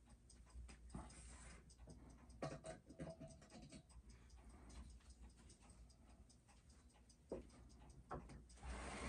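Faint, irregular small clicks and taps of watchmaker's tools on a Seiko 6309 automatic movement as its rate is adjusted on the timegrapher. There is a short faint hum about two and a half seconds in, and a couple of sharper clicks near the end.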